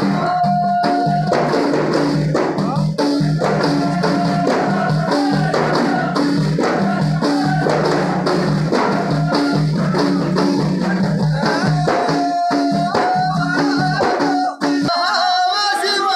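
Ahidous music: a group of men singing together while beating hand-held frame drums in a steady, fast rhythm. The drumming stops near the end.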